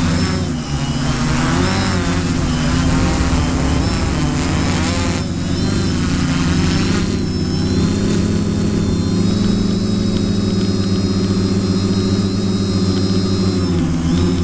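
Multirotor drone's electric motors and propellers running at lift-off and climb: a steady buzzing hum whose pitch wavers during the first several seconds, then settles.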